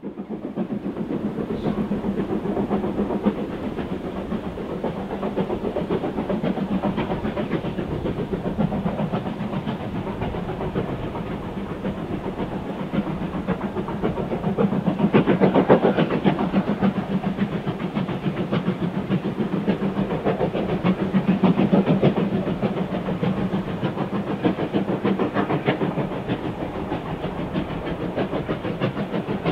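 A Q6 0-8-0 steam locomotive works a passenger train, its exhaust beating out a steady, rapid rhythm of chuffs. The beats swell louder about halfway through and again a few seconds later.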